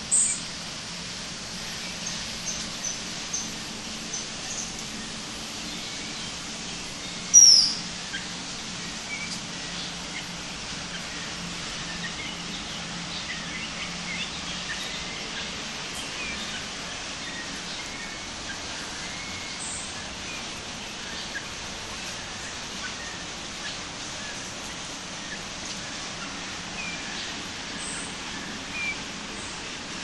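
Birds chirping and calling, many short scattered notes over a steady hiss, with one loud, sharp falling whistle about seven seconds in. A faint low hum fades out about halfway through.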